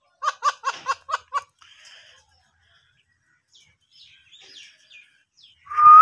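Alexandrine parakeet calling: a quick run of six short, sharp notes at about five a second, then soft scattered chatter, and a loud rising call near the end.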